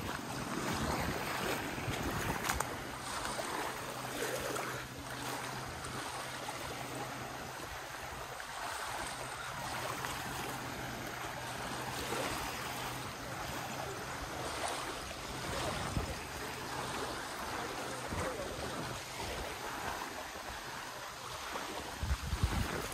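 Wind on the microphone with lapping water, and a faint steady low hum through most of the middle.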